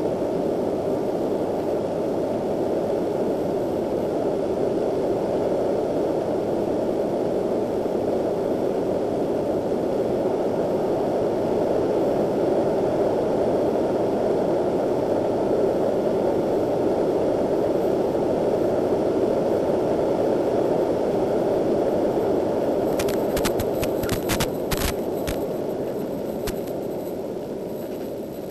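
Steady rushing hiss of the audio carried over an FPV plane's video link, a mix of wind and radio static with no clear motor tone. There is a short run of crackling clicks a little before the end, and the hiss eases off near the end.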